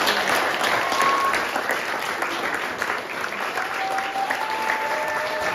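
Audience applauding: dense, steady clapping from many hands for a cast's curtain call.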